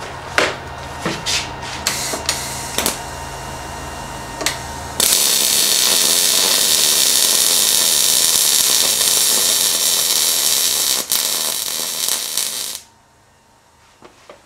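MIG welder on a steel wagon axle: a steady hum and several sharp clicks as the torch is set in place, then about five seconds in the arc strikes and the bead runs with an even sizzling hiss for about eight seconds before cutting off sharply.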